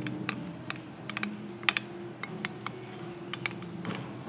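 Irregular light clicks and taps of kitchen utensils against dishes and bowls as raw fish salad is put together, about a dozen sharp ticks at uneven spacing.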